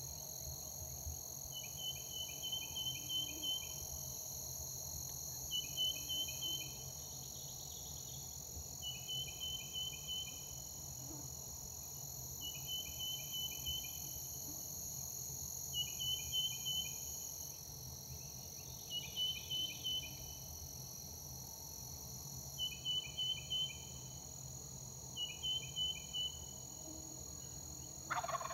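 A songbird repeats a short, high trill of about six quick notes every two to three seconds over a steady high-pitched insect hum. Right at the end the roosted Osceola wild turkey gobbler starts to gobble.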